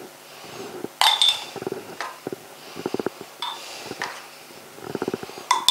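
Metal spoon scooping mustard from a stainless-steel bowl into a small glass jar: a few sharp clinks of spoon on glass and metal, about a second in, midway and at the end, with runs of quick soft taps and scrapes between them.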